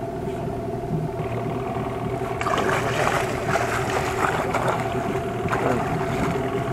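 A hooked kingfish (king mackerel) thrashing and splashing at the surface beside the boat, starting about two and a half seconds in, over the boat's engine idling steadily.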